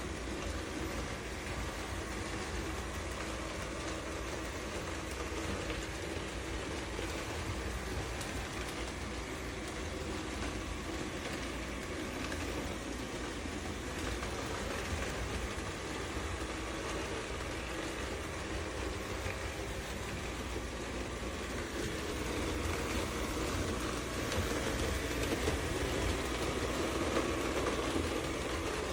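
MOVA P10 Pro Ultra robot vacuum and mop running with a steady mechanical whirr and low hum, growing somewhat louder for the last several seconds.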